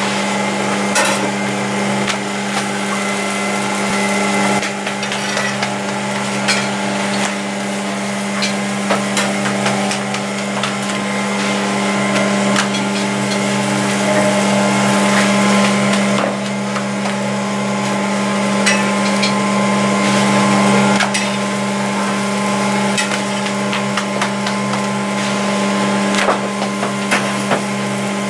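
Metal spatula clicking and scraping on a large flat griddle (tawa) as naan are turned, in many short sharp knocks, over a loud steady machine hum.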